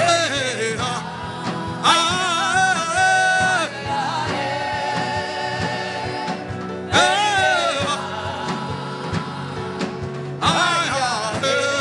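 Gospel worship music: a solo voice sings four phrases of long, wavering held notes with no clear words, over a steady sustained instrumental backing.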